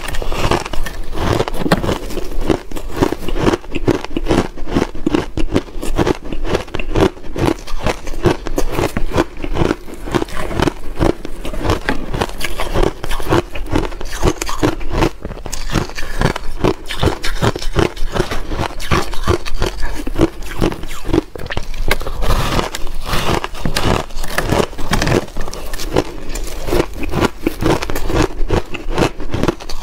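Close-up crunching and chewing of soft, powdery and slushy reshaped shaved ice, many quick crackling crunches throughout, with gloved fingers scraping and crumbling the ice block.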